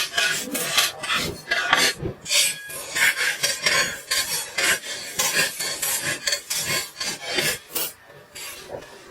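Rasping, scraping strokes of a hand tool worked over a part, several a second and irregular, getting quieter near the end.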